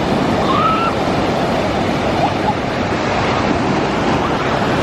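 Ocean surf breaking on the beach: a steady, loud rush of waves, with a couple of faint, brief distant voices.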